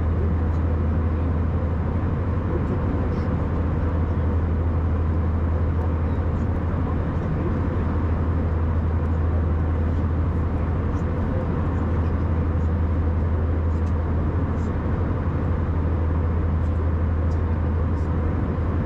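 Steady cabin drone of an Airbus A319 airliner: a constant low hum of engine and airflow noise heard inside the cabin from a window seat.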